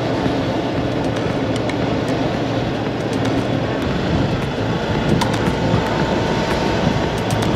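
Motorcycle on the road: a steady rush of wind and engine noise.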